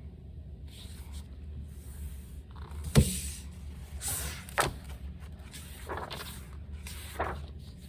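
A hardcover picture book being handled and opened, with pages turning: a sharp knock about three seconds in, then several short rustling page sweeps, over a steady low room hum.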